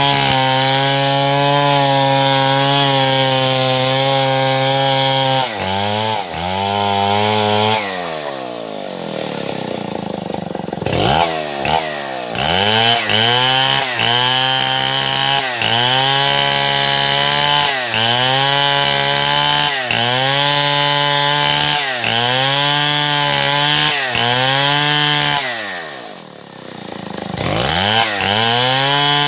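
Stihl MS070 two-stroke chainsaw running at high revs while cutting wood: a steady high tone at first, then the engine pitch sags and recovers again and again, about every second and a half. Twice it falls away toward idle and then revs back up.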